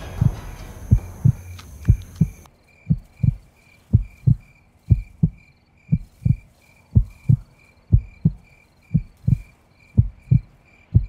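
Heartbeat sound effect: a low double thump, lub-dub, repeating about once a second. Crickets chirp steadily behind it, and a background hiss cuts out about two seconds in.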